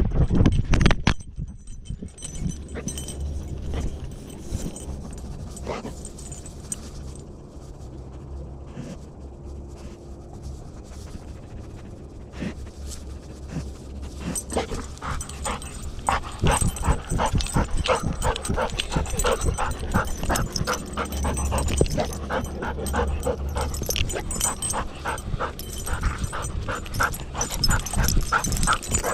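Golden retriever panting right at its chest-mounted camera. The panting is quieter at first and turns into a strong, quick, even rhythm about halfway through.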